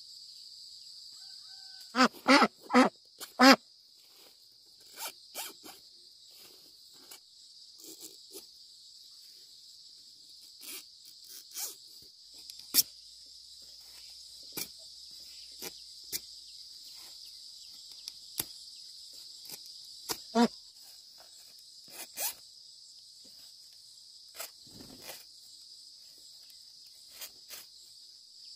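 Steady insect chorus, with scattered sharp clicks and knocks throughout. A quick run of four loud short sounds comes about two seconds in, and two more loud ones come later.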